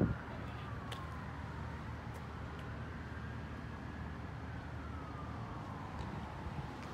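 A distant siren wailing slowly, its pitch falling and rising over several seconds at a time, over a steady low rumble.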